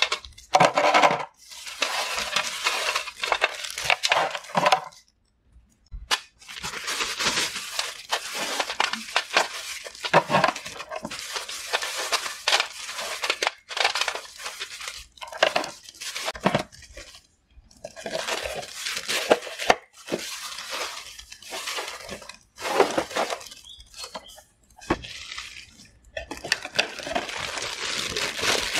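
Crisp baked honey stick biscuits clattering against each other and the clear plastic box as they are tipped in: dry, irregular clicking and rattling in bouts separated by short pauses.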